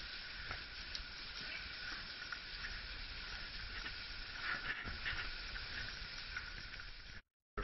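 A steady hiss with faint scuffs and knocks from cavers' boots and gear as they clamber over rock and mud, a few louder scuffs about four and a half seconds in. The sound cuts out briefly near the end.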